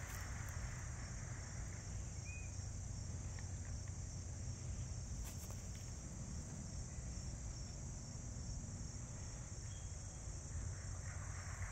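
Steady high-pitched insect chorus from the summer woods, with a low rumble underneath.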